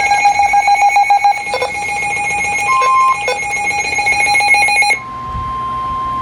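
An electronic weather-alert alarm beeping in a fast pulsing pattern. About five seconds in it cuts off and a single steady tone takes over: the NOAA Weather Radio warning alarm tone that comes before a new severe thunderstorm warning.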